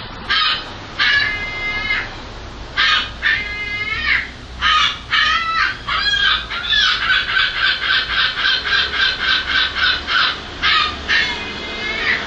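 Gull calling: a string of separate calls, then a quick run of short, even notes in its laughing call, then a couple of longer calls near the end.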